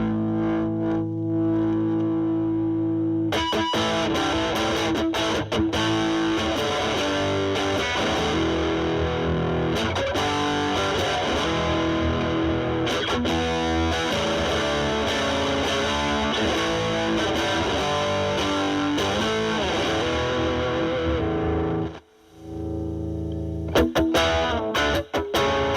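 Fender Stratocaster through a Boss DS-2 Turbo Distortion pedal into a Marshall Valvestate amp's drive channel, giving a heavily distorted electric guitar tone. A held chord rings for about three seconds, then comes a run of single-note lead phrases. A short break falls near the end, followed by a few chord hits.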